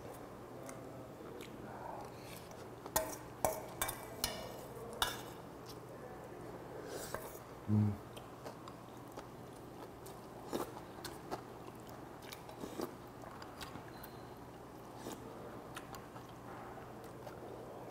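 A person chewing spoonfuls of pufferfish soup with vegetables and bean sprouts, with scattered light clicks of a metal spoon against a stainless steel bowl. A brief low hum comes about eight seconds in.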